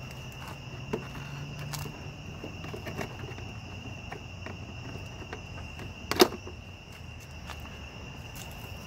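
Crickets chirping steadily, with a few faint clicks and one sharp knock about six seconds in.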